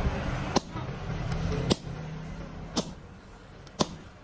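Hammer striking steel at the forge, four evenly spaced blows about a second apart, some with a short high metallic ring. A low steady rumble underneath fades away about halfway through.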